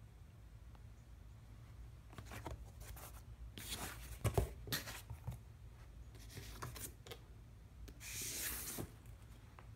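Cardboard shipping box being handled and its flaps opened by hand: scattered rustles and scrapes of cardboard, a thump about four seconds in, and a longer scraping slide near the end.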